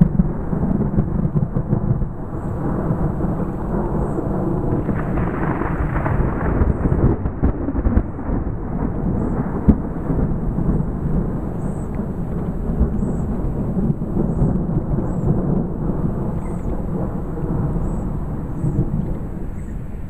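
Rolling thunder from an approaching thunderstorm: a continuous, fluctuating low rumble that swells about five seconds in, with a sharper crack near the middle.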